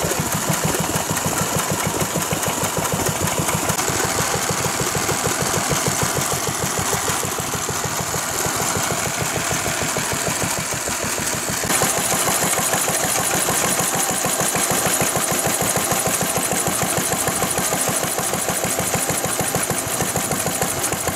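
Vintage stationary engines running with a steady, rapid firing beat. The sound shifts abruptly about twelve seconds in.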